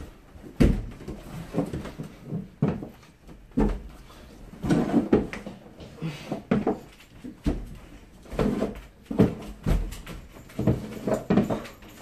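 Irregular thumps and knocks of sneakered feet landing on wooden stair treads and hands pulling on wooden handrails, as a man with paraplegia hauls himself up a staircase by his arms one step at a time.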